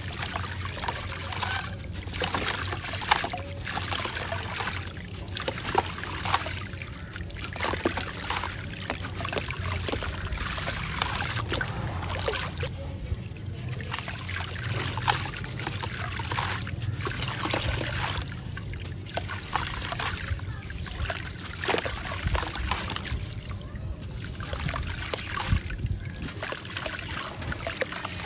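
A sand-cement cylinder being crumbled by hand over a tub of water. There is a frequent gritty crunching and crackling, and sand trickles and patters into the water with small splashes, over a steady low rumble.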